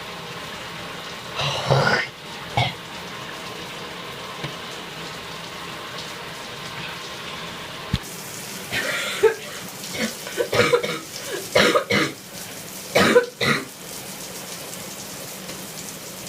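A person coughing and clearing their throat in steam from a shower, to loosen phlegm: a couple of short coughs about two seconds in, then a run of hacking coughs from about halfway through, over the steady hiss of the running shower.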